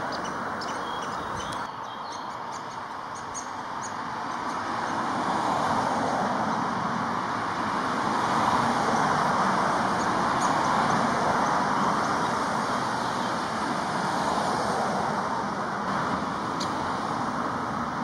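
Steady hum of distant road traffic, swelling and fading slowly, with a scattering of short, high-pitched bird calls over it.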